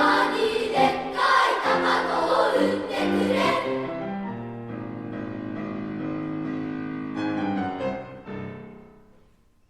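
Children's choir singing the closing phrase of a song with accompaniment. The voices stop about four seconds in, and a final soft chord rings on and slowly fades out near the end.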